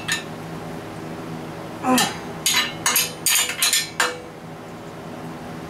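A quick, irregular run of metal clinks, about six in two seconds, as a wrench knocks against the anchor-bolt nuts and steel base plate of a bench grinder stand, over a steady low hum.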